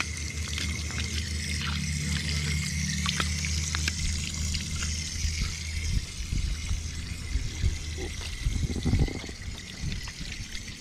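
Tap water pouring and splashing onto fish in a metal foil pan as they are washed and scaled with a knife, with scattered scrapes and clicks of the blade.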